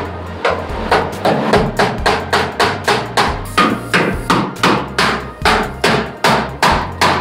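Hammer blows on the rusted sheet-metal front end of a Ford Mustang, about three or four strikes a second, each with a short metallic ring, as the rotted front structure is beaten loose for removal.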